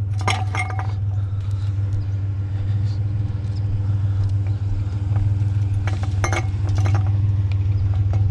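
Vehicle engine idling with a steady low hum, with a few short clinks and knocks about half a second in and again around six and seven seconds in.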